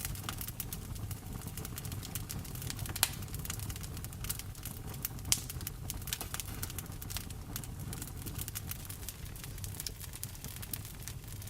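Wood fire crackling in a fireplace, with many small irregular snaps and two louder pops about three and five seconds in, over a steady low rumble of rain.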